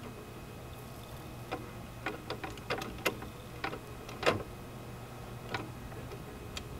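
Irregular light clicks and taps from handling small metal parts and thin wire on a wooden block, about ten in all, the loudest a little after four seconds in, over a steady low hum.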